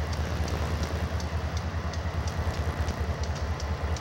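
CSX diesel locomotive rumbling low as it rolls slowly onto a steel girder railroad bridge, with light irregular ticks over a steady hiss.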